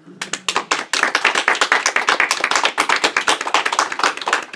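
Small audience clapping: many overlapping hand claps that start just after the beginning and thin out near the end.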